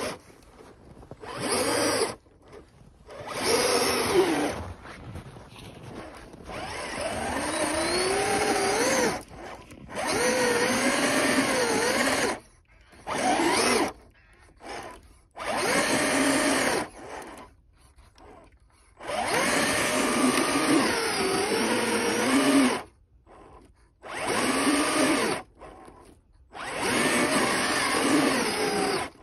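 RC off-road truck's electric motor and drivetrain whining in about nine throttle bursts of a few seconds each, pitch rising and falling as the tyres churn through deep snow, with short pauses between.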